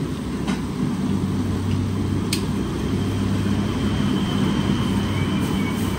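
Beer being poured into a wide aluminium pan of crabs on a gas stove, under a steady low rumble from the burner running at full flame. One sharp click comes about two seconds in.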